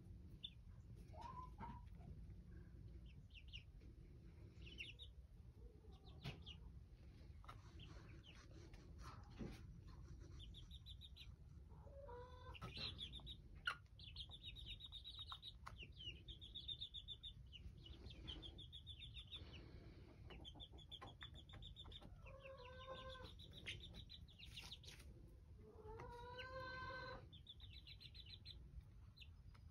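Young Black Jersey Giant chicks, 24 days old, peeping faintly, with many short high peeps coming thick from about ten seconds in and a few lower, longer trilling calls among them. A single sharp click about halfway through.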